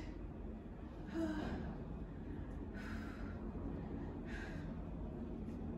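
A woman breathing hard during crunches: three sharp breaths, about a second and a half apart, over a low steady hum.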